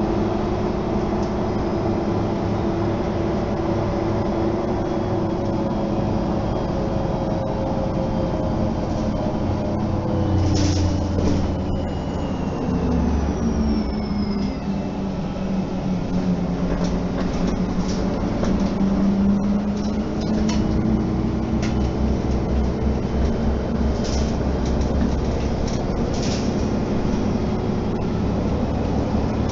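Mercedes-Benz O 530 G Citaro articulated bus heard from inside the passenger cabin while driving: steady engine running with rattles from the interior fittings. Around the middle the engine note shifts and a high whine falls in pitch as the bus changes speed, with a few sharp clicks later on.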